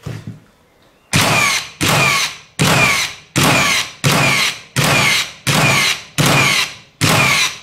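Hitachi (HiKOKI) NR1890DBCL 18V brushless cordless framing nailer bump-firing nails into hard red gum, about nine shots in a steady rhythm of a little more than one a second, starting about a second in. Each shot is a sharp report trailed by a brief whine falling in pitch.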